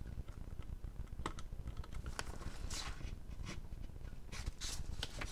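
Light, irregular clicks and taps of multimeter test probes being set on the metal pins of an IGBT module during a diode test.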